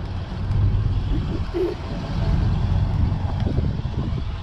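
Low, uneven rumble of road vehicles, with a brief tone about one and a half seconds in.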